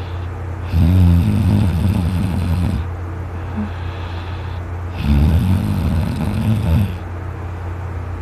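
A man snoring very loudly in his sleep while lying on his side: two long snores of about two seconds each, a couple of seconds apart, over a steady low hum.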